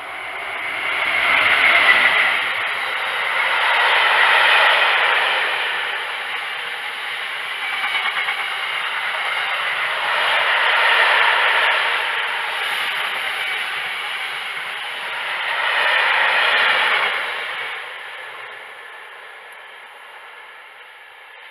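Diesel freight train of bogie tank wagons passing close at speed: the locomotive goes by, then the wagons' wheels rumble and clatter over the rails, the noise swelling and easing several times as the wagons pass. It fades over the last few seconds as the train draws away.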